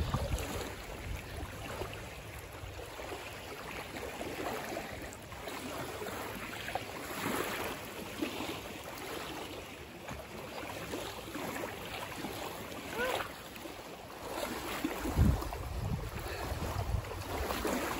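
Choppy lake water lapping and splashing, with wind buffeting the microphone in gusts. Near the end a swimmer wades out through the shallows, splashing.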